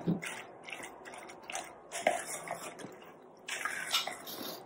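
A spoon stirring shredded cucumber, carrot and onion through curd in a steel bowl: a run of short, uneven wet squelching strokes, with a longer stretch of stirring about three and a half seconds in.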